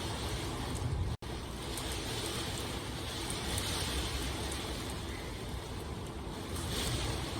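Steady rain, an even hiss with a low rumble underneath, cut by a momentary dropout about a second in.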